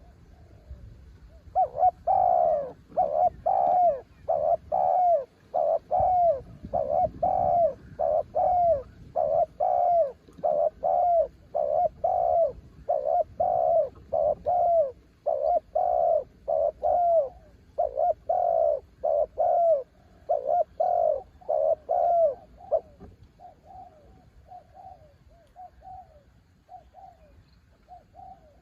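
Spotted dove cooing: a long run of short, evenly repeated coo notes, each falling away at its end, loud for most of the time and turning softer and sparser near the end.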